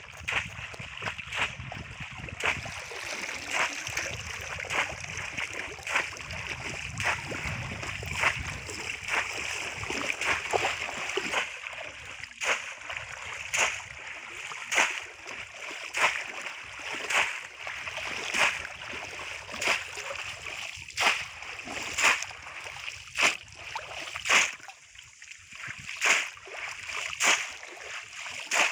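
Shallow muddy water splashing as a boy wades through it and plunges a conical bamboo polo fish trap, with sharp splashes about once a second over a steady hiss.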